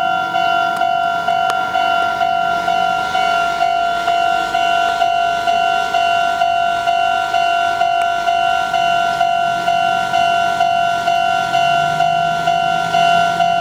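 Japanese level crossing's electronic warning bell ringing in a steady, even repeating ding. A low hum from the approaching train comes up near the end.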